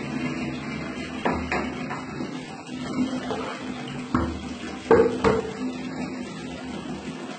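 Tap water running and splashing during a cat's bath over a steady low hum, with a few sharp knocks, the loudest about five seconds in.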